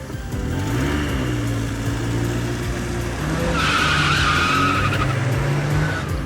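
A car engine rising in pitch and then running steadily, with a tyre screech from about three and a half to five seconds in.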